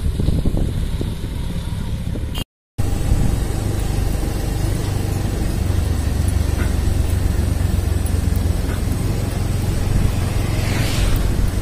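Mahindra 575 DI tractor's four-cylinder diesel engine hauling a heavily loaded sugarcane trailer: a steady low rumble mixed with road noise. The sound cuts out briefly about two and a half seconds in. Near the end an oncoming car swishes past.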